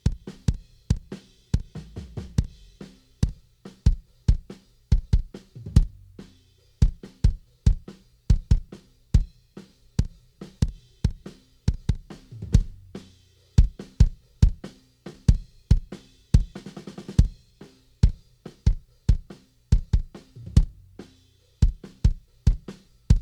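Recorded drum kit playing a steady beat of kick and snare hits, with a quick run of rapid strokes about two-thirds of the way through, played back through a dbx 160A compressor.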